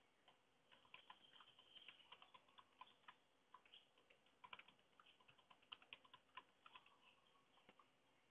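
Faint computer keyboard typing: a run of quick, irregular keystrokes.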